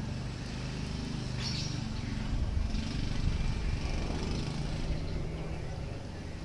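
Four-engine turboprop drone of a Lockheed C-130H-30 Hercules, its Allison T56 engines running as it rolls along the runway: a steady low hum of several tones that grows a little louder about two and a half seconds in.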